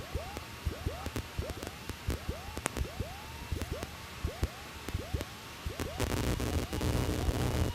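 Cabin noise of a Piper Cherokee on final approach in gusty wind: engine at reduced power and rushing air, recorded through the cockpit audio. About six seconds in the engine sound grows louder and fuller.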